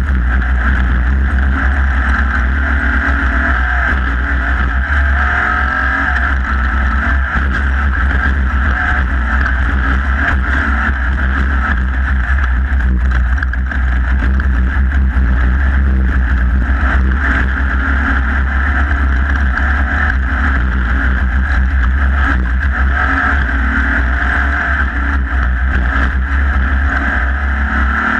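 Off-road race vehicle's engine running hard at speed, heard through an onboard camera, with wind and rough-terrain noise over a deep, steady drone.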